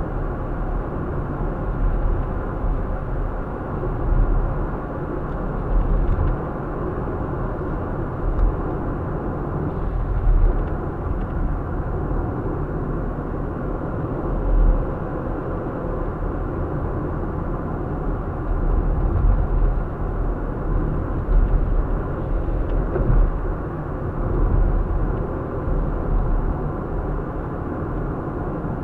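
Car driving at road speed, heard from inside: a steady low rumble of tyres and engine, swelling louder every few seconds.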